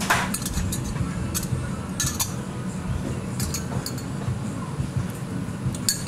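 Small metal spoons clinking against the stainless-steel jars of a noodle-shop condiment caddy as seasoning is spooned out: a series of light, irregular clinks, the sharpest right at the start and again near the end.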